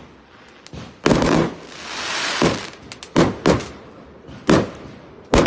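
Fireworks going off: a sharp bang about a second in, a hiss that builds for about a second, then several more bangs at uneven intervals.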